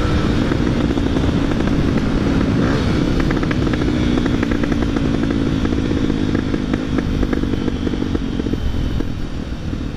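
Honda XR250 Tornado's single-cylinder engine, fitted with a Belparts aftermarket exhaust, running steadily as the motorcycle is ridden.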